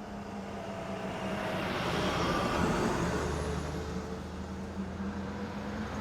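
A car driving past, growing louder to a peak about halfway through and then fading, its pitch falling as it goes by.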